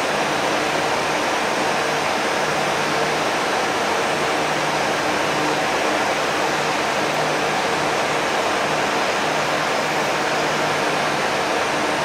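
Steady, even rushing noise with a faint low hum that comes and goes, like ventilation or flowing water in a building.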